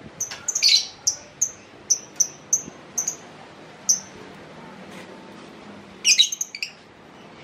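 White-rumped shama (murai batu) of the Medan type singing in its cage, a bird that has just arrived and is singing straight away. It gives a quick tumbling phrase, then a string of about seven short high chirps that each drop in pitch, a few to the second, then another quick phrase about six seconds in.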